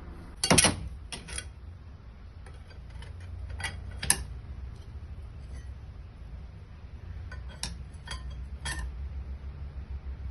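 Metal parts and hand tools clinking and knocking against each other in separate strikes during gearbox repair work. The loudest knock comes about half a second in. A steady low hum runs underneath.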